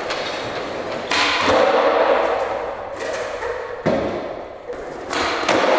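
Skateboard wheels rolling on a smooth concrete floor, with three sharp board impacts: about a second in, just before four seconds, and a little after five seconds.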